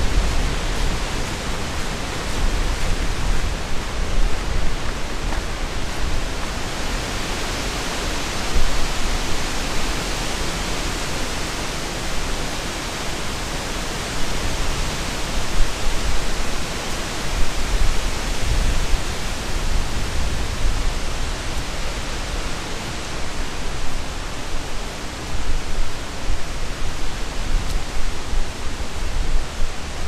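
Strong wind rushing in gusts, swelling around eight to twelve seconds in. Wind buffets the microphone throughout in a low, uneven rumble.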